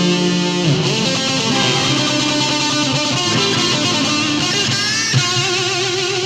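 Sped-up instrumental music led by guitar, with no vocals.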